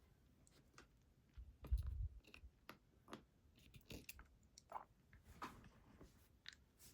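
Faint scattered clicks and taps of a pin-tumbler lock and picking tools being handled, with a louder low thump just before two seconds in.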